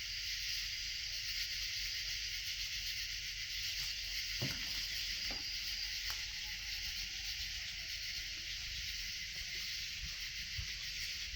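A faint, drawn-out animal howl from the wood line, rising and then falling in pitch partway through, which the listener takes for a wolf rather than a coyote. It sits under a steady high hiss, with a couple of faint knocks just before it.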